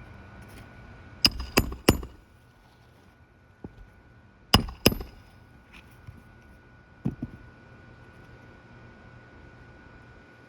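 Hammer driving roofing nails through a shingle: three quick strikes about a second in, two more a few seconds later, and a couple of lighter taps further on.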